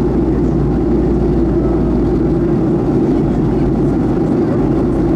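Boeing 737-400 cabin noise in flight: the steady drone of engines and rushing air, with no change in level.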